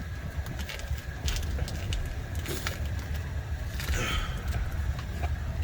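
Car engine idling steadily, with a few light clicks and a brief faint whine about four seconds in.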